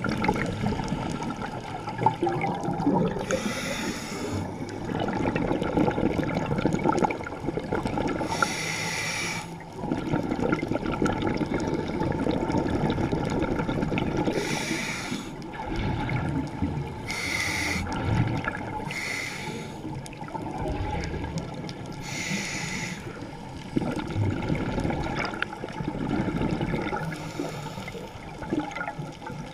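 Scuba diver breathing through a regulator underwater: short hissing inhales every few seconds, alternating with longer stretches of bubbling exhales.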